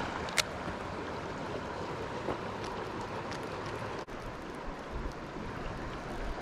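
Steady rush of wind and flowing canal water, with a single sharp click about half a second in.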